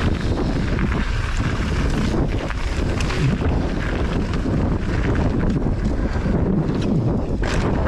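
Wind buffeting the microphone over the rolling rumble of mountain-bike tyres on a dirt trail during a fast descent. Short clattering knocks from the bike come over rough ground, a sharper one near the end.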